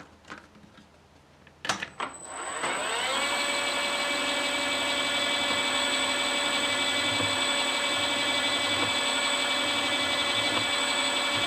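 Milling machine spindle switched on with a sharp click about two seconds in, the motor running up in pitch for about a second and then turning at a steady speed with a high whine, ready to spot the pin hole with a small drill. A few light clicks come before it.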